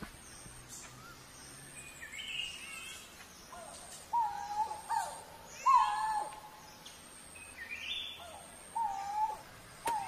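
Coral-billed ground cuckoo calling: short, clear notes at a steady low pitch, in a run of three around the middle and two more near the end. Higher chirped notes come in between, one wavering and one rising.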